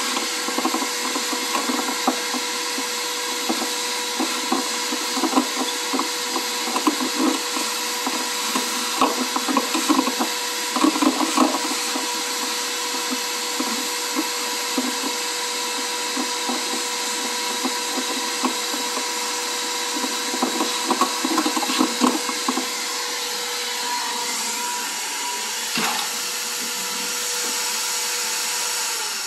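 Vacuum cleaner running with a steady whine, dirt and grit crackling and rattling through the nozzle over the first two-thirds, then the motor alone; it is switched off at the very end and starts to wind down.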